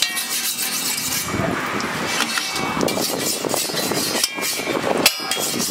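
Egg omelette sizzling on a large flat iron griddle as a metal spatula scrapes and presses it against the hot metal, with one sharp clack of the spatula about five seconds in.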